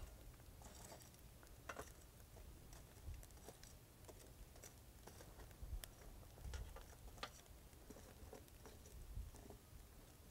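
Faint, scattered clicks and light scrapes of metal tongs picking up and setting down charcoal briquettes in an ash bed, over a low steady rumble.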